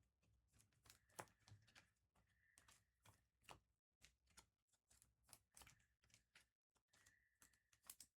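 Faint clicks and rustles of trading cards being handled and flipped through, many small ticks close together.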